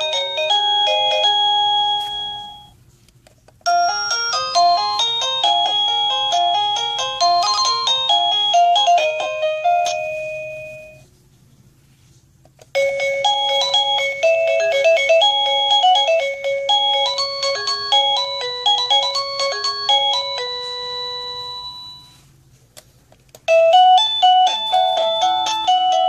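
SadoTech wireless doorbell receiver playing its electronic chime melodies one after another: one tune ends about two seconds in, and three more follow, each after a short pause.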